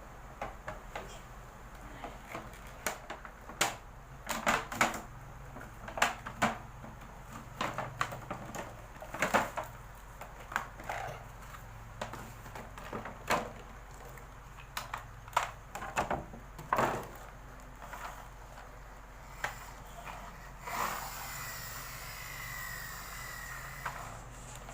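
Toys being handled: irregular clicks and knocks of hard objects being set down and moved, several close together at times. Near the end a steadier whirring noise takes over.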